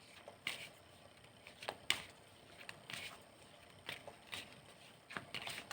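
A tarot deck being shuffled by hand: a string of soft, irregular card flicks and taps, about one or two a second.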